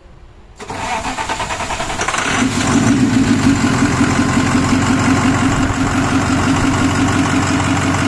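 International bus engine started, catching about half a second in with a little gasoline fed into it to help its hard starting, then picking up over a couple of seconds and running steadily with an even pulsing beat.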